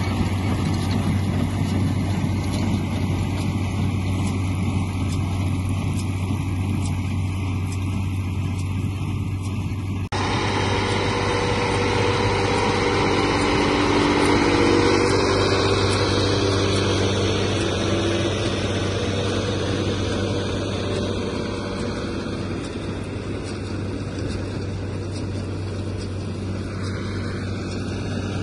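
Case International tractor's diesel engine running steadily as it pulls a Claas Rollant 46 round baler picking up grass for silage. It grows louder as the rig passes close about halfway through, then fades as it moves away.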